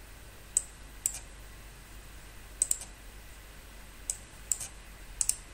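Computer mouse buttons clicking: scattered sharp clicks, several in quick pairs like double-clicks.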